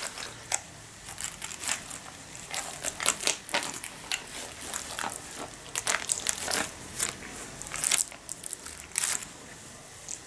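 Thin clear plastic dessert tub crinkling and clicking as it is handled and tilted, with a metal spoon scraping through the cream inside it. The sharp crackles come irregularly throughout.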